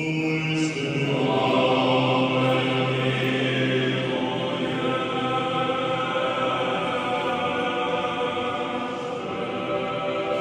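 Choir singing Orthodox liturgical chant: several voices holding long, slow chords, with notes changing every few seconds.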